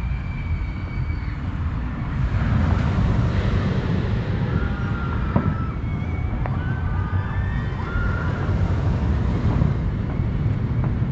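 Wind rumbling on the microphone, swelling about two seconds in, with a few faint short high whistles and a few light pops around the middle.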